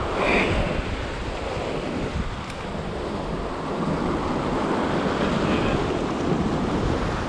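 Ocean swell surging and washing against a granite rock ledge below, with wind buffeting the microphone. A steady rushing noise that rises and falls slightly as the water surges.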